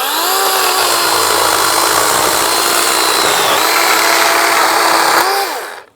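DeWalt 20V Max XR brushless cordless chainsaw spinning up and cutting through a 2x6 board: a steady electric whine over the rasp of the chain in wood, with a brief dip in pitch partway through under load. Near the end the trigger is released and the motor winds down.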